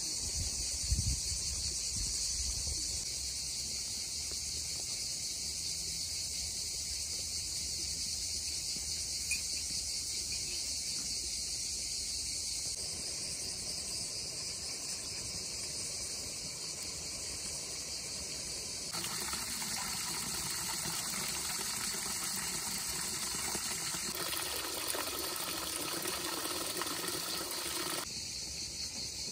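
Steady, high-pitched insect chorus chirring without a break, with a broader hiss joining underneath for several seconds past the middle.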